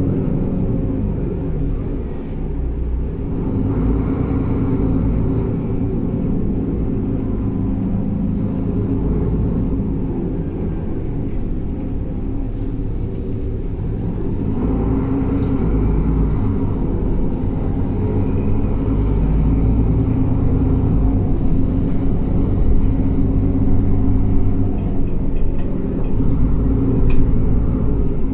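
Inside a Mercedes-Benz Citaro G C2 articulated city bus under way: steady engine and drivetrain rumble with road noise, the engine pitch shifting up and down a few times.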